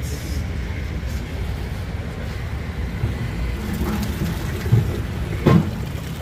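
A big pot of boiled chickpeas is tipped and poured into a copper serving vessel over a steady low background rumble. Two heavy knocks sound near the end, the second the louder.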